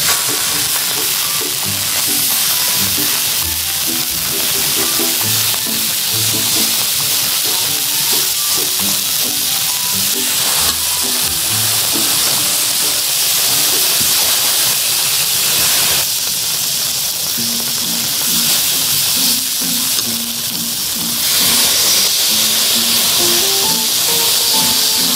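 Frozen pork belly sizzling as it fries, a steady hiss that grows louder near the end, under background music with a simple melody.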